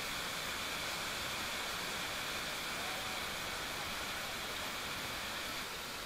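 Krangshuri waterfall in full spate, its water rushing steadily into the plunge pool as an even, constant noise, a little quieter near the end.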